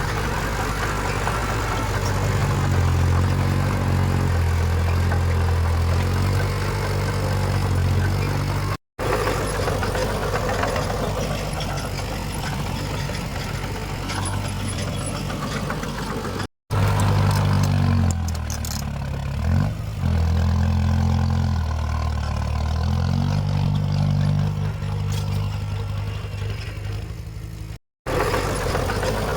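Diesel engines of heavy earthmoving machines running under varying load, their low note stepping up and down, with one quick rev and drop about two-thirds of the way through. The sound cuts off abruptly three times where separate clips are spliced together.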